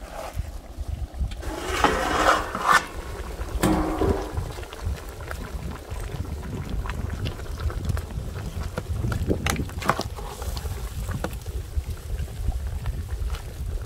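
Wind rumbling on the microphone, with scattered clicks and a brief louder rustle about two seconds in.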